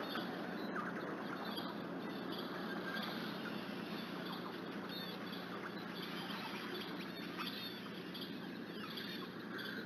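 Outdoor nest-cam ambience: a steady low hum under faint, repeated high chirps and soft irregular plopping or pattering noises of unknown origin.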